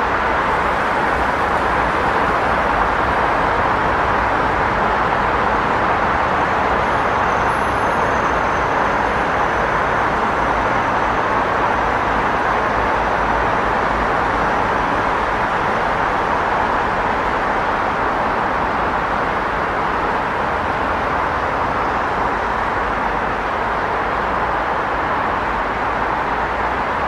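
Busy street traffic noise: a steady, even wash of passing cars and engines.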